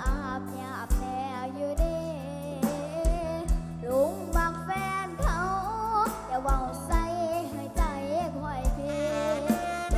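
Mor lam song music: a steady kick-drum beat, a little under one a second, under a bass line and a wavering, sliding lead melody.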